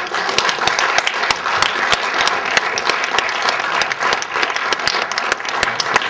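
Audience applauding: many hands clapping together, breaking out suddenly and keeping up a dense, even clatter.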